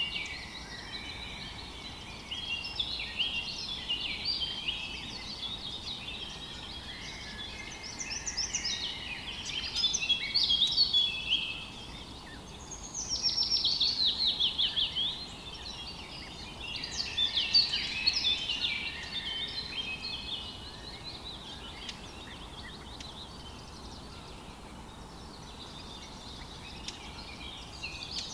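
Several songbirds singing at once, with overlapping chirps and trills and a fast run of falling notes about halfway through, over a faint steady hiss of flowing river water.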